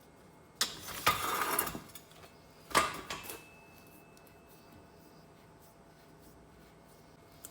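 Metal parts of a hydraulic brake cylinder clattering and scraping on a workbench as the cylinder is taken apart by hand: a rattling scrape lasting over a second, then a sharp clank with a short rattle, then quiet.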